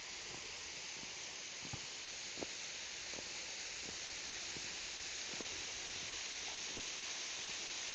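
Waterfall rushing steadily, an even hiss of falling water, with scattered faint clicks.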